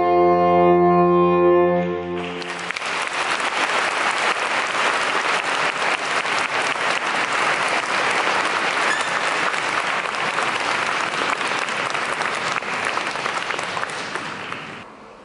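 A saxophone quartet, baritone down to soprano, holds a final chord for about two and a half seconds and cuts off. The audience then applauds steadily, and the applause dies away near the end.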